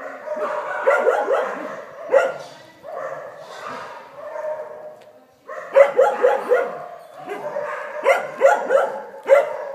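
Dogs barking in quick runs of several short barks each, about a second in, around six seconds in and again near the end, with drawn-out pitched calls in the gaps.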